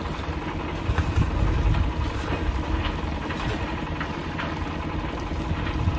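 Engine of a concrete mixer running steadily at a construction site, with a few scattered sharp knocks.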